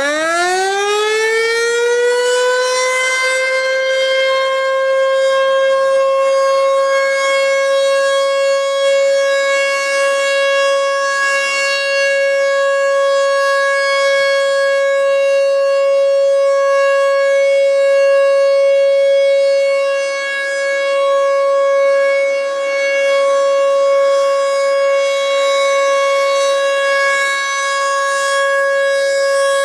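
American Signal Tempest T-128 outdoor warning siren, an 8-port single-tone chopper, finishing its wind-up in a fast rising glide over the first few seconds. It then holds one steady tone: the Alert signal. The loudness dips slightly a few times.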